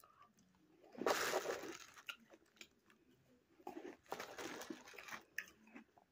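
Ice crunching as it is chewed, mixed with a plastic bag crinkling as another chunk of ice is picked out of it; a noisy burst about a second in and a longer stretch of crinkling and small clicks a little after the middle.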